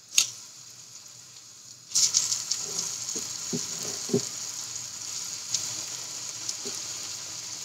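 Cornstarch-coated chicken frying in hot oil. The sizzle jumps up suddenly about two seconds in, then runs on as a steady crackle, with a few soft knocks a second or two later.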